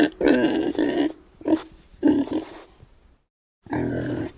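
Pig grunting: a series of short, loud grunts, broken by a sudden cut to silence a little after three seconds, after which the grunting resumes.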